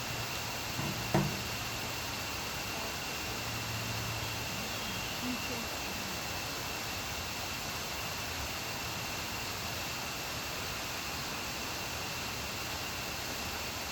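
Steady hiss of rushing water, with a thin high tone held steady over it and one sharp click about a second in.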